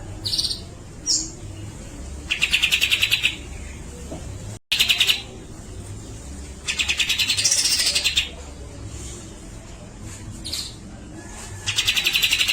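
A cucak jenggot (grey-cheeked bulbul) singing: four rapid rattling bursts about a second long, with short clear notes between them and a high whistled note that rises and falls near the middle. A steady low hum runs underneath.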